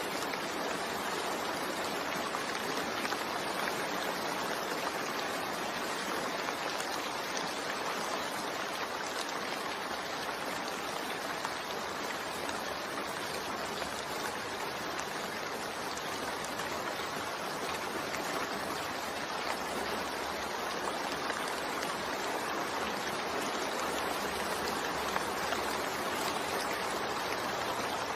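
Steady rain falling, an even hiss with no breaks or single drops standing out.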